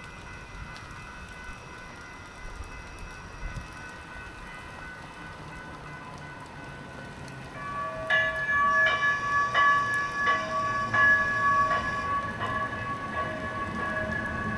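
Light-rail train's warning bell ringing over and over, about once every 0.7 s, starting about halfway through over the low rumble of the arriving train. Before that, steady rain hiss.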